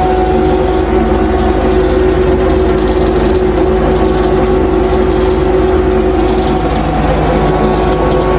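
An electric motor running steadily with a constant hum that holds one pitch throughout.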